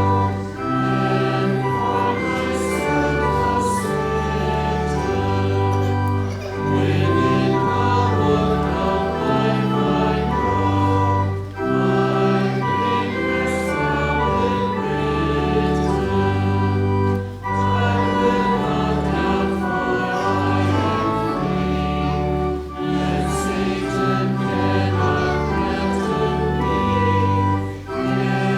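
Organ accompanying voices singing a hymn, in held chords with short breaks between phrases about every five or six seconds.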